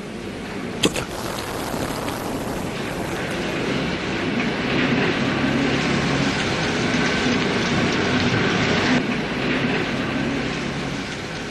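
A motor vehicle passing: its engine and road noise build over several seconds, peak, and fade toward the end, with a sharp click about a second in.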